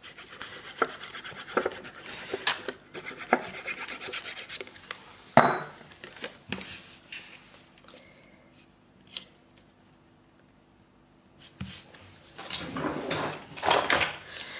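Cardstock being handled and rubbed by hand, pressing two glued paper layers together: light taps and scrapes of paper, a quiet stretch in the middle, then more rubbing near the end.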